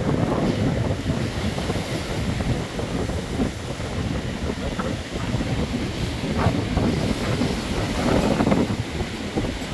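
Rough sea waves surging and breaking on the rocky shore in a storm, mixed with strong wind buffeting the microphone; the surge swells louder about eight seconds in.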